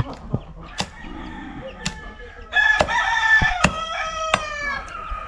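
A rooster crows once: a long call starting about two and a half seconds in, holding and then falling. Under it come sharp knocks about once a second from a large knife chopping into a marlin's carcass.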